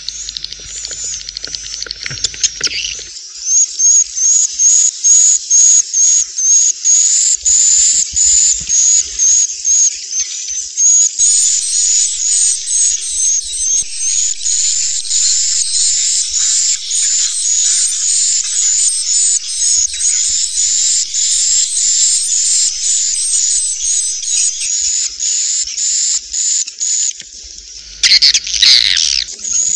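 Swiftlets calling: a loud, fast run of high, repeated chirps, about two a second, with a louder, harsher burst of chirring about two seconds before the end.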